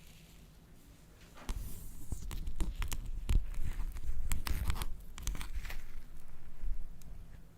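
Slime being worked by hand, with a quick run of crackling clicks and pops and soft low thumps that starts about a second and a half in.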